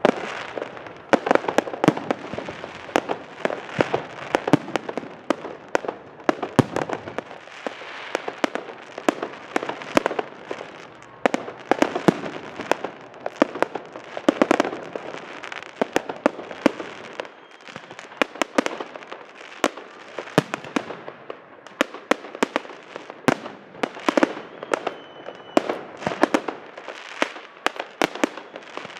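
Aerial fireworks display: shells bursting overhead in a rapid, irregular run of sharp bangs, several a second, without a break.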